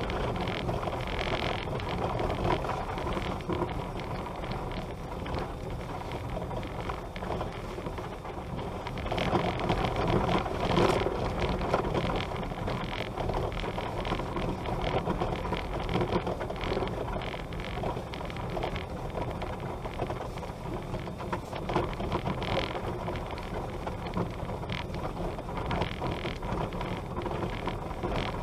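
Car driving along an unpaved dirt and gravel road: steady tyre and road noise from the loose stones and ruts, with the engine under it, louder for a few seconds around the middle.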